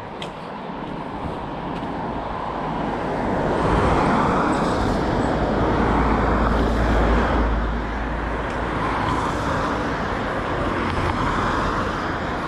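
Road traffic passing close by: the tyre and engine noise swells to its loudest about four to seven seconds in, with a second, lighter pass near the end.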